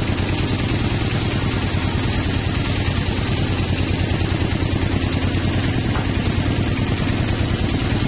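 Engine running steadily with a fast, even low pulse, as of a motor driving sawmill machinery.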